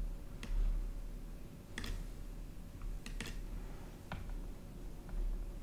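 About six sharp, separate clicks from working a computer's mouse and keyboard, two of them in quick succession a little after the three-second mark, over a faint steady low hum.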